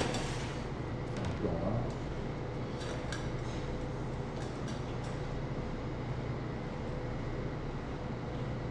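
A steady low hum of kitchen machinery, with a few light clicks of utensils on the steel counter about three seconds in.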